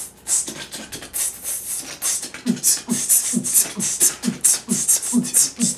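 Mouth beatboxing: a steady beat of deep, falling kick-drum sounds, about two or three a second, with sharp hissing hi-hat and snare sounds between them. The beat settles into a regular pattern about two seconds in.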